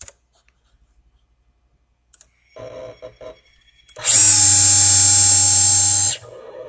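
Servo motor running through a quick 200-revolution move at about 6,000 RPM: a loud steady whine made of many pitched tones that starts about four seconds in, lasts about two seconds, and stops abruptly when the move ends.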